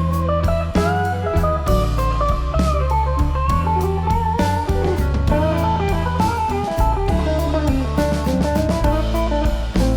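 Background music: a melodic guitar line with bending notes over bass and a drum kit beat.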